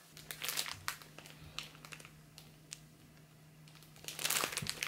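Plastic packaging of a paper-like screen protector film crinkling as it is handled. There are a few light rustles in the first second, then louder, continuous crinkling from about four seconds in, over a faint steady hum.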